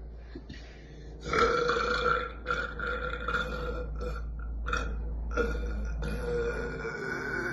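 A young woman burping: long, drawn-out belching that starts about a second in, breaks off briefly a few times, and runs until near the end.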